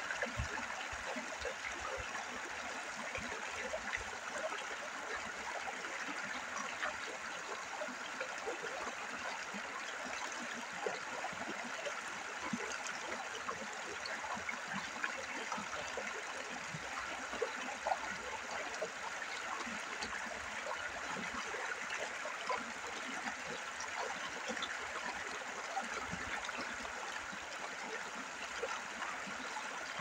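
A shallow riffle of the Buffalo River at low water, running over rounded river stones: a steady babble dotted with many small gurgles and splashes.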